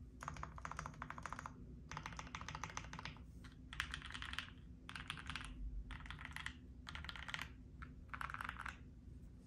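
Typing on a Bear65 Alice-layout mechanical keyboard fitted with lubed-and-filmed Marshmallow switches, a polycarbonate plate and GMK keycaps: rapid keystrokes in about seven short runs with brief pauses between.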